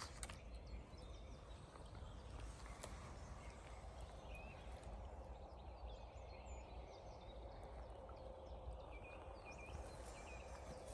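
Faint outdoor ambience: the steady hiss of a small meltwater stream running through a flooded clearing, with a few short, distant bird chirps around the middle and near the end.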